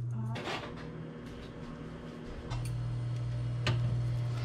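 Kitchen handling sounds: a few light clicks and knocks of utensils and dishes over a steady low hum.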